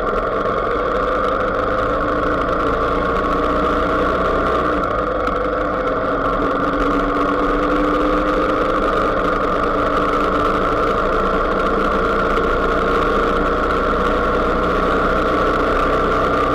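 Engine of the vehicle carrying the camera, running steadily while cruising along a road, its pitch drifting gently up and down, with steady wind and road noise.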